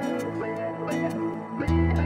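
Instrumental background music led by plucked guitar, with held notes and a new lower chord coming in near the end.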